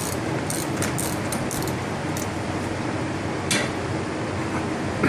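Hand tools clinking lightly against the steel front hub and suspension parts during a front axle install. A quick, irregular run of clinks comes in the first two seconds, and one sharper clink about three and a half seconds in, over a steady background hum.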